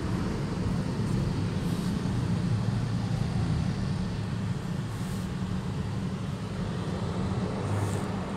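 Steady low engine hum and road noise inside the cabin of a Suzuki S-Presso automatic, a small three-cylinder hatchback, moving slowly in city traffic, with a few faint light clicks.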